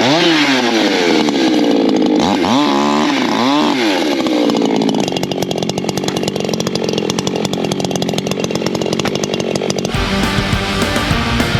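Ported Echo CS-620 two-stroke chainsaw cutting firewood, its engine pitch dipping and rising several times under load, then dropping back to a rapid, rattly idle. Rock guitar music starts about ten seconds in.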